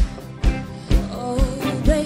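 Live rock band playing a mid-tempo song, a kick drum on a steady beat about twice a second under a sung melody.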